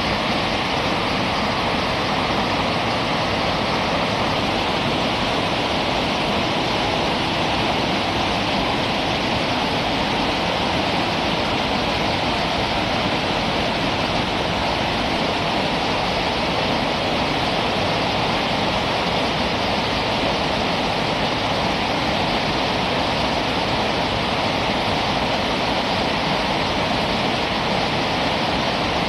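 Whitewater river rapids rushing, a steady unbroken noise of moving water.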